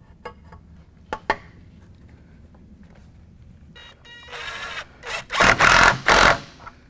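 Small cordless driver tightening the hose clamp on a silicone turbo charge tube: a few light handling clicks, then a motor whine about four seconds in, followed by loud bursts of running as the clamp is drawn tight.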